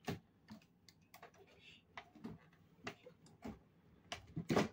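Light clicks and taps of plastic as the battery of an electronic weighing scale is handled in its plastic battery compartment and pulled out. The taps are scattered and faint, with a louder cluster about four seconds in as the battery comes loose.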